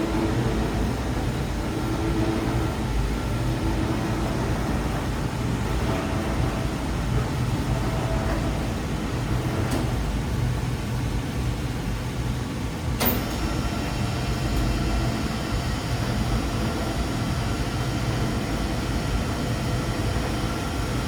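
Professional Miele tumble dryer running with a steady low mechanical hum from its motor and turning drum. A sharp click comes about thirteen seconds in, and a fainter one a few seconds earlier.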